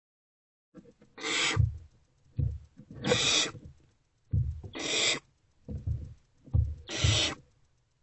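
Barn owlets giving rasping, hissing screeches, the nestlings' begging call, four times at roughly two-second intervals starting about a second in. Short low thumps fall between the calls.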